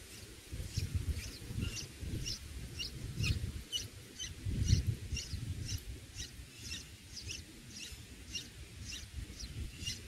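Red-whiskered bulbul nestlings begging with a steady series of short, thin, high chirps, about two a second, while gaping to be fed at the nest. A low rumbling noise runs underneath.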